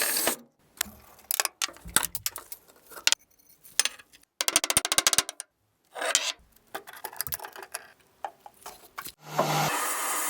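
Hand work on the rusty metal parts of a guillotine cutter: a string of separate clicks, scrapes and knocks, with a quick run of rattling strokes about halfway through. A power tool starts running near the end.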